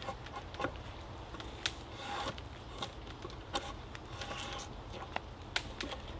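A drawknife peeling bark off a log on a sawhorse, in short scraping strokes with sharp clicks, roughly one every half to one second and unevenly spaced.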